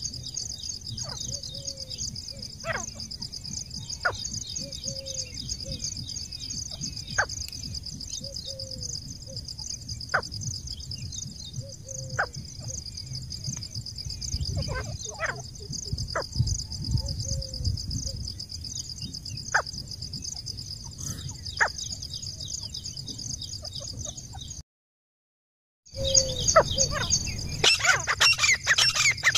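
A steady, high, pulsing insect trill with scattered short, sharp bird chirps. After a brief dropout about 25 seconds in, loud, rapid grey francolin calls begin near the end.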